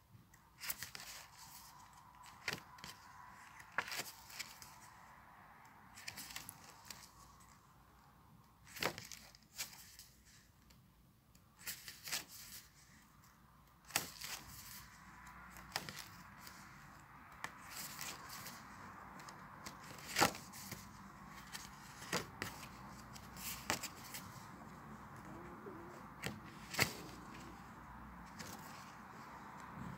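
Spiral-bound sketchbook being handled and its pages turned: paper rustling with scattered sharp clicks and taps, over a faint steady hum.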